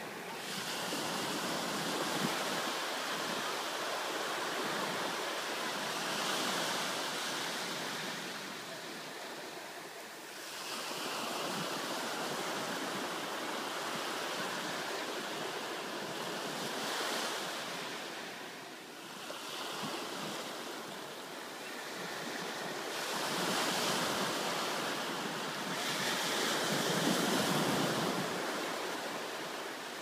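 Small Atlantic surf breaking and washing up the sand at the water's edge. It swells and eases every several seconds as each wave comes in and draws back.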